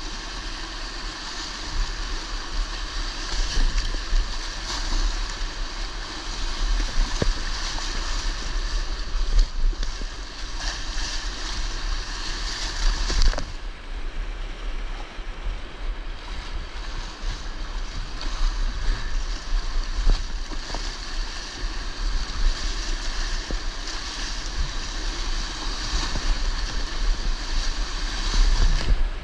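Whitewater rapids rushing and splashing around a kayak, heard close at water level, with a constant low rumble on the microphone.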